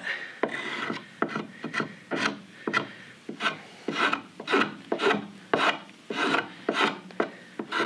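Spokeshave shaving green sycamore: repeated short scraping cuts, about two strokes a second, as the rim of a cup is shaped.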